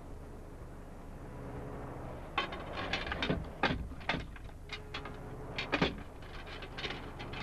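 Knocks and clatter of hands rummaging in a dresser's lower cupboard and pulling out a small wooden box, in irregular clusters loudest in the middle of the stretch. A low steady hum lies underneath.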